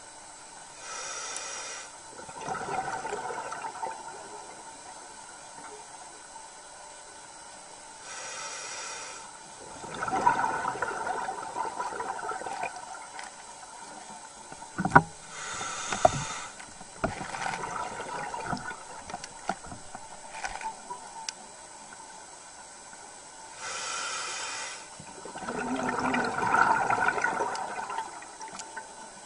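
A scuba diver breathing through a regulator underwater: a short hiss on each inhale, then a longer bubbling exhale. The cycle repeats four times, about every seven to eight seconds, with a few sharp clicks in the middle.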